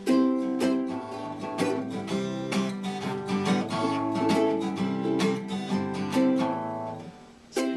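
Acoustic guitar and ukulele strummed together in a steady rhythm of about two strums a second, chords changing as they go; the playing breaks off briefly near the end and starts again.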